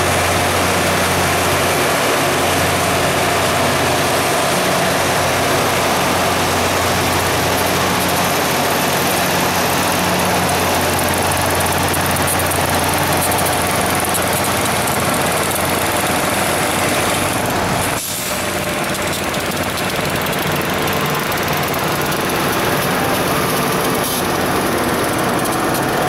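Loram rail grinder train grinding the rail as it passes: a loud, steady, harsh grinding noise from the rotating grinding stones on the railhead, mixed with the hum of its diesel engines. The noise dips briefly about eighteen seconds in, then carries on.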